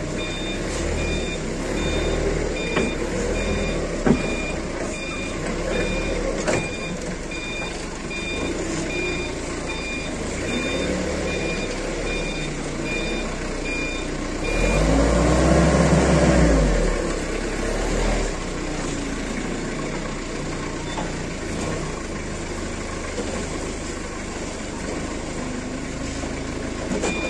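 Forklift reversing beeper giving evenly spaced high beeps over the forklift's running engine. About halfway the beeping stops and the engine revs up and back down for a couple of seconds, then runs on steadily.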